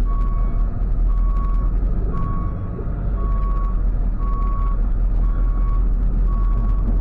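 Tow truck's reversing alarm beeping steadily, about one half-second beep per second, seven beeps in all, over the low rumble of its idling engine as it backs up.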